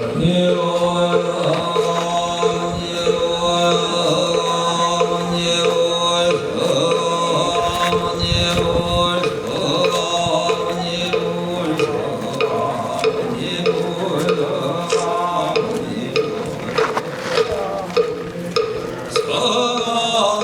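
Buddhist chanting with musical accompaniment: a steady low drone under sustained chanted tones, with one note pulsing in a regular repeating pattern.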